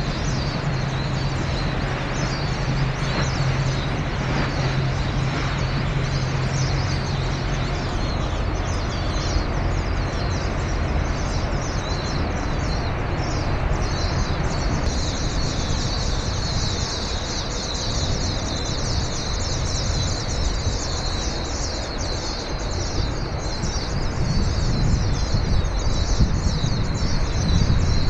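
Small birds chirping rapidly over a steady low rumble, the chirping getting busier about halfway through. A low engine hum fades out about eight seconds in.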